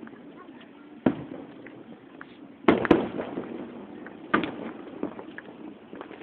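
Fireworks shells bursting overhead: a sharp bang about a second in, two close together near three seconds, another after four seconds and a smaller one near five. Each bang is followed by a rolling echo.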